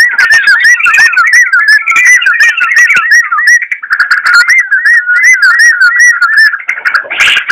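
Yellow-vented bulbul (trucukan) singing a fast, continuous run of looping whistled notes, about four a second. A louder, harsher note comes near the end.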